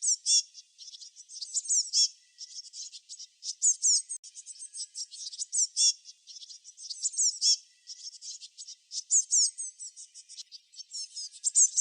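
Songbirds chirping busily: many overlapping rapid, high chirps and short falling whistled notes, with a few brief lulls.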